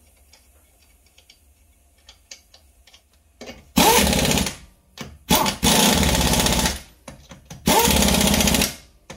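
Pneumatic impact wrench running the lug nuts on: three bursts of about a second each, starting about four seconds in. A few faint clicks come before them.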